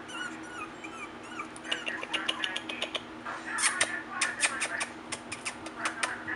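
Four-week-old rat terrier puppies whimpering in thin, high squeaks that rise and fall. About a second and a half in comes a busy run of sharp clicks and short yips, loudest around the middle.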